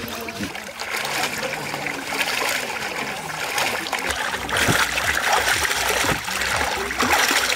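Water splashing and trickling as raw chicken pieces are washed, with irregular small splashes throughout.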